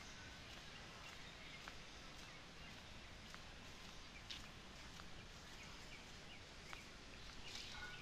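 Faint outdoor ambience: a low, even background hiss with a few faint, short high ticks scattered through it.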